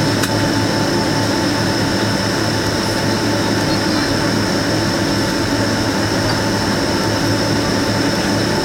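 Boeing 767-300 jet engines at low taxi power, heard inside the passenger cabin: a steady rumble and hum with a constant high whine on top.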